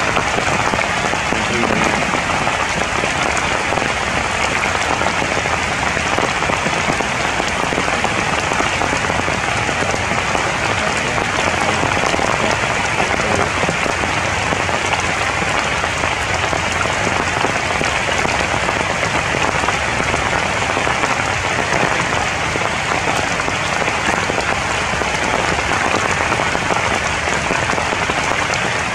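Steady, heavy rain falling on leaves.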